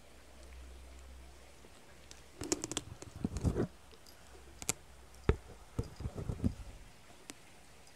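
Small jingle bell on a kitten's collar clinking, with light knocks, in irregular clusters: one about two and a half seconds in, a single sharp click around five seconds, and another cluster around six seconds.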